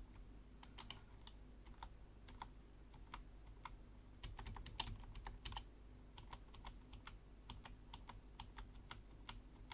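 Faint computer keyboard key presses: irregular single taps, about one or two a second, as keys are pressed one at a time to step through frames.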